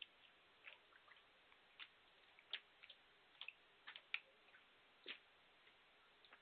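Near silence in a hushed snooker arena, broken by about ten short, faint clicks and taps at irregular intervals.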